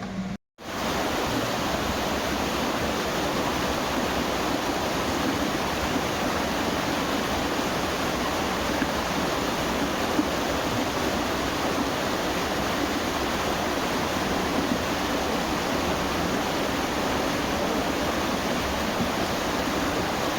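Steady rush of flowing water from a spring-fed stream or cascade, even and unbroken after a brief dropout just after the start.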